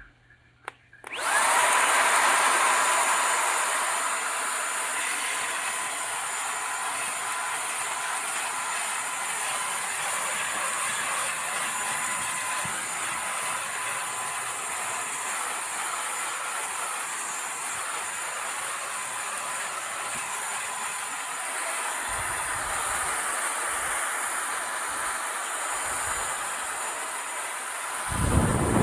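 LNSOO K12 cordless handheld vacuum cleaner switching on about a second in and running steadily: a rushing air hiss with a thin high motor whine. A few low thumps come near the end.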